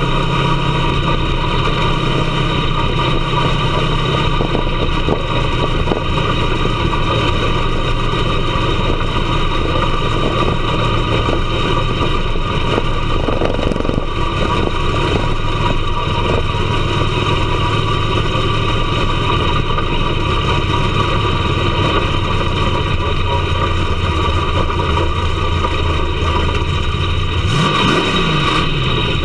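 Dirt-track race car's engine heard from inside its cockpit, running steadily at track speed. Its pitch eases down about a second in, then rises and falls as it revs near the end.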